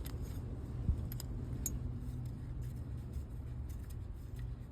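Light metallic clicks and taps from a Torx T20 driver working the small pin screw out of a steering-column ignition lock, with one duller knock about a second in, over a steady low hum.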